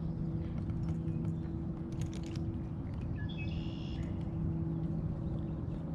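Outdoor ambience on the water: a steady low hum with a short bird call a little past the middle and a few sharp clicks before it.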